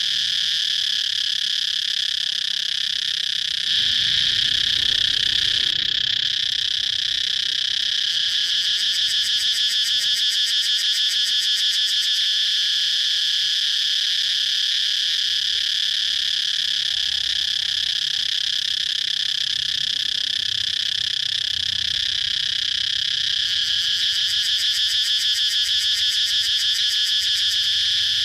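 Cicadas buzzing in a continuous chorus: a steady high drone with a fast pulsing texture, growing a little louder about four seconds in.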